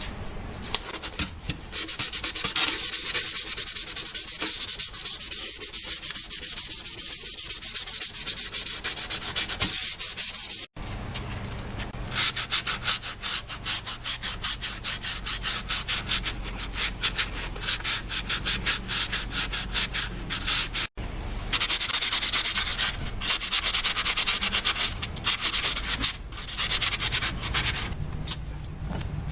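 Hand scrubbing or sanding of a part with an abrasive, in rapid back-and-forth strokes. It stops abruptly twice, about eleven and twenty-one seconds in, then starts again each time.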